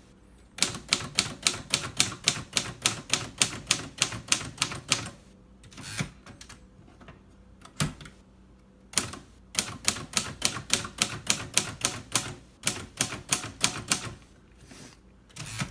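1955 Royal Quiet De Luxe manual typewriter being typed on. The type bars strike in quick runs of about four to five keystrokes a second, with pauses between the runs and a couple of single clacks in the gaps.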